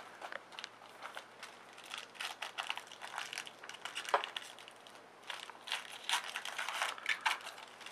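Trading-card pack wrapper crinkling and tearing as it is opened and handled, in two spells of dense crackling.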